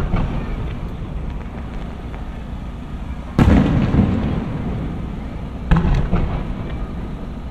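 Aerial firework shells bursting overhead: a loud boom just before halfway, a smaller one right after, and another about two seconds later, each followed by a long rolling echo.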